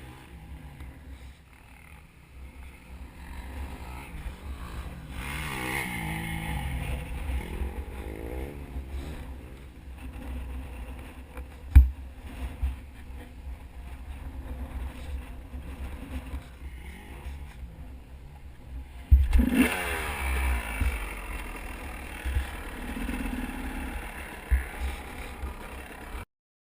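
Dirt bike engine running on a trail ride, its revs rising and falling over and over under a steady low rumble of wind and vibration on the camera. A sharp knock comes about halfway through, a louder jolt with a burst of revving follows later, and the sound cuts off abruptly near the end.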